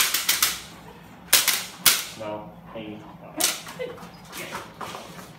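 A split training stick, the kind used to agitate dogs in bite work, cracking sharply again and again in irregular clusters, loudest near the start, about a second and a half in and about three and a half seconds in.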